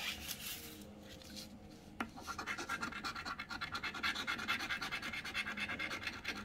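Scratch-off lottery ticket being scratched to uncover its play spots. A few light strokes come at first, then from about two seconds in a quick, steady run of short scratches, roughly ten a second.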